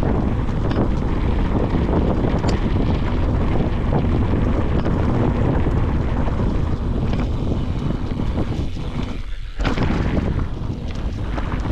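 Wind buffeting the camera microphone on a fast mountain-bike descent, with the rumble and rattle of the bike over rocky trail. The rush briefly drops away about three quarters of the way through, then comes back.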